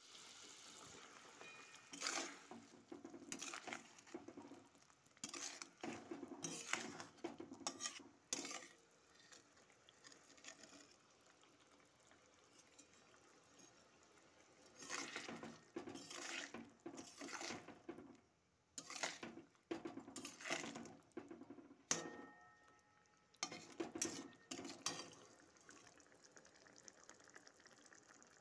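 A metal spatula scraping and clinking against a metal pan as a simmering fish curry is stirred. The strokes come in three spells: a long one from about two seconds in, another in the middle, and a short one near the end, with quiet stretches between.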